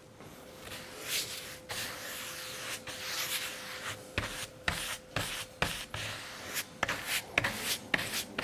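Glue brush scrubbing back and forth across a wooden panel, spreading glue for veneering: a scratchy rubbing that breaks into quicker, sharper separate strokes in the second half.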